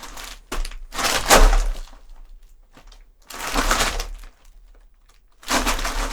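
Foley footsteps: leather shoes crunching slowly through a box of gravel, each step a short grinding crunch, about one every one to two seconds, the loudest about a second in.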